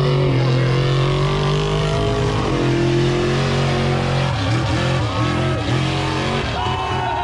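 Big off-road truck engine running loud at a steady rev, then revving up and down through the second half.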